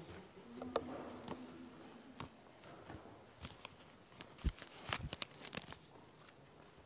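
Faint footsteps and shuffling of several people walking back to their seats, with scattered small knocks and clicks.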